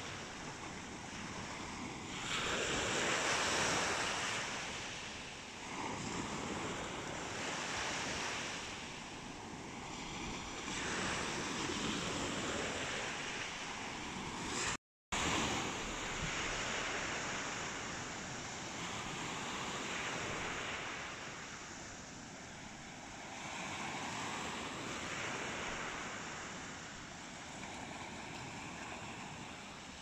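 Surf breaking and washing up a sandy beach in slow surges that swell and fade every few seconds, with wind buffeting the microphone. The sound cuts out for an instant about halfway.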